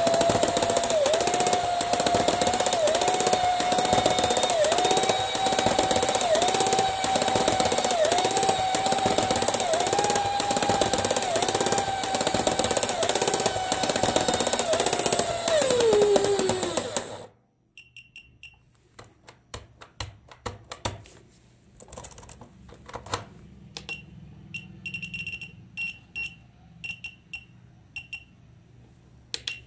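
Small DC motor in a toy football coin bank, overvolted at 20–33 V from a bench power supply, running with a loud steady whine that dips in pitch with a click about once a second as the kicking mechanism loads it. Near the end it winds down in pitch and stops, followed by faint clicks of handling.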